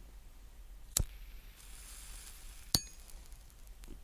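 Metal cigarette lighter being worked: two sharp metallic clinks about a second and three-quarters apart, with a faint hiss between them. The second clink rings briefly.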